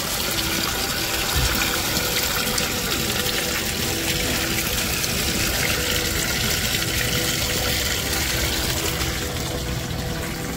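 Water running steadily, a constant rush without a break.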